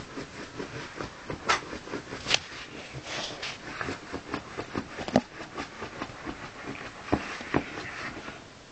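A small dog curled in its pet bed making a quick, irregular run of short snuffly sounds, with a few sharper clicks about a second and a half in, just over two seconds in, and in the middle.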